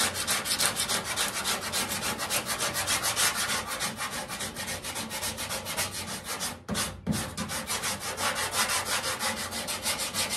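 Hand sanding block with sandpaper rubbed briskly back and forth over body filler on a 1968 Pontiac Firebird's front fender. The strokes come in a fast, even run, with a brief pause about two-thirds of the way through. This is block sanding of the filler to reshape the fender's body line.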